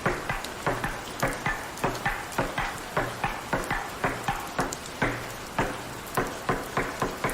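Rain hiss with a steady run of sharp clicks or taps, about three a second and unevenly spaced.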